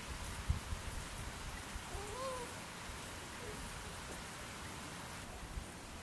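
Soft steady hiss of outdoor ambience, with a faint brief whine that rises and falls about two seconds in.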